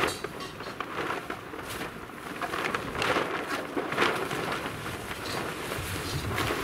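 Plastic tarp crackling and rustling in irregular bursts as it is lifted and shaken out.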